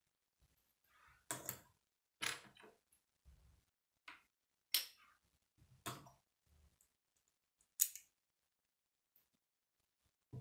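Plastic Lego bricks being handled and pressed together, giving a series of sharp separate clicks, about six over several seconds, with soft handling rustle between them.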